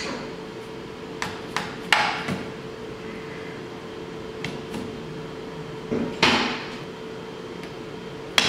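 A red soft-faced mallet tapping on a Polaris 700 twin engine to seat the cylinder over the pistons and down onto the base gasket: about nine sharp taps in small groups, each ringing briefly.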